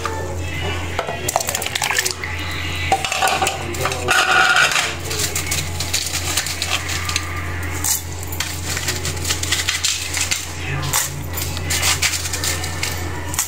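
Kitchenware clinking and knocking irregularly, with ingredients going into a glass jar of milk, over a steady low hum.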